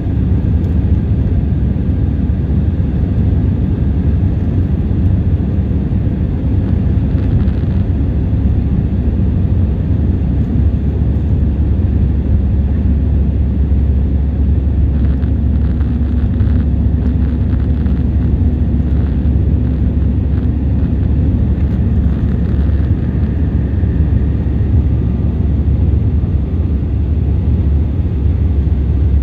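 Steady cabin roar of an Airbus A320-214 in flight, from its CFM56 turbofan engines and the airflow over the fuselage, heard inside the cabin beside the wing.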